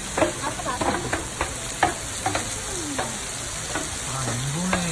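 Water streaming down a rock face and splashing onto stone, with irregular sharp knocks from the hanging bamboo tubes as the water pushes them and they swing back. A faint low hum rises briefly near the end.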